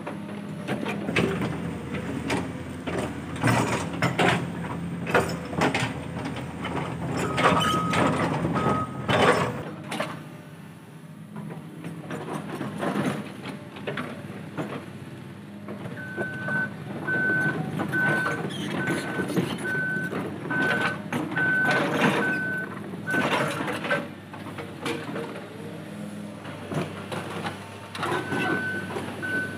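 Caterpillar hydraulic excavator running, its bucket scraping and clattering through a pile of broken rock with many sharp knocks. A travel alarm beeps about once a second as the machine tracks: twice about eight seconds in, in a run of about eight beeps from the middle on, and twice more near the end.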